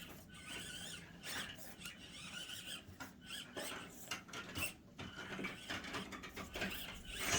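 Axial SCX24 micro crawler's small electric motor and gears whining faintly, rising and falling in pitch with the throttle as it backs up and drives on, with a few light clicks.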